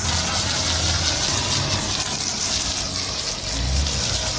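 Car-wash pressure washer's motor and pump running with a steady low hum, with a faint hiss of water spray over it.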